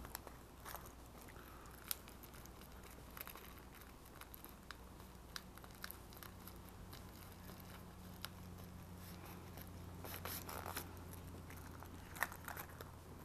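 Faint clicks and crackles of the heavy-duty zip-seal closure on a waterproof iPad case being pressed shut by hand. The ticks are scattered, with a denser crackle about ten seconds in.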